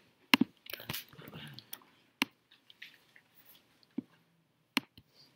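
Several short, sharp clicks at irregular intervals from a computer mouse and keyboard being operated.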